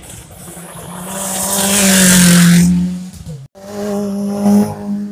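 Rally car engines at high revs on a wet stage. The first car runs up to full volume and passes close with a loud rushing noise; about three and a half seconds in the sound cuts off abruptly and a second car is heard at high revs through the bend.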